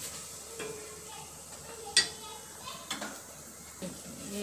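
Wooden spatula stirring chopped onions frying in oil in a steel pot, with light scraping and a faint sizzle as the onions brown. One sharp clack about two seconds in, with a few lighter knocks.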